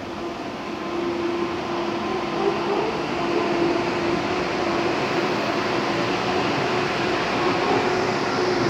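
Danhai light rail tram pulling into the station: a steady rumble of wheels and running gear with a steady hum, growing slowly louder.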